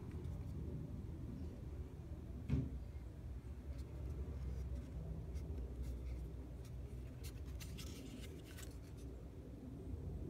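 Handling noise from a small plastic remote bass knob being turned over in the hand: faint clicks and rustles, mostly a second or two before the end, and one thump about two and a half seconds in, over a low steady rumble.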